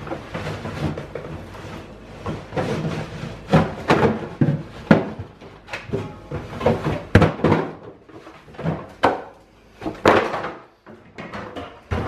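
A cardboard case of beer cans being pushed and wedged into a refrigerator's bottom shelf: an irregular run of scrapes, thumps and knocks of the box and cans against the shelves. It ends with a sharp knock as the fridge door swings shut.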